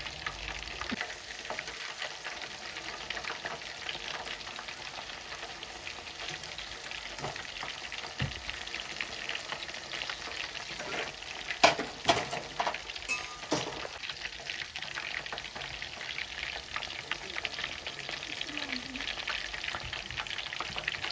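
Chicken pakodi frying in hot oil, a steady crackling sizzle. A few sharp knocks come about halfway through.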